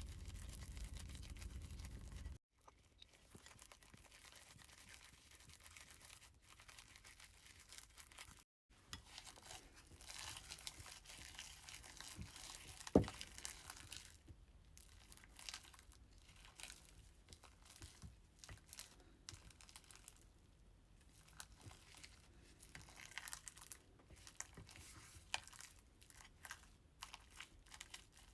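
Fingers poking and pressing crunchy slime, giving faint crackling, crinkling pops with one sharper click about thirteen seconds in. The sound cuts out briefly twice, about two and eight seconds in.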